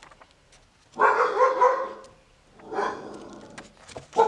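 A dog vocalizing: two drawn-out pitched calls, the first about a second in and louder, the second near three seconds, then a short sharp yelp at the end.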